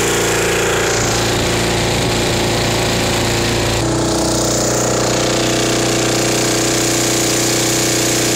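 A Briggs & Stratton 5¾ hp four-stroke lawn mower engine, converted into a boat outboard, running steadily under way as it drives the boat. Its note shifts slightly about four seconds in.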